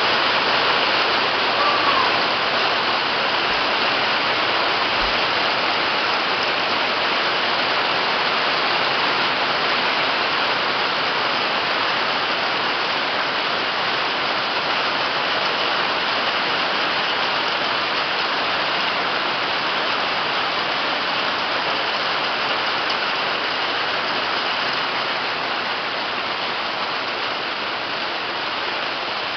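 Hailstones a little larger than peas pelting down hard and bouncing off asphalt: a loud, dense, unbroken clatter like heavy rain, easing slightly toward the end.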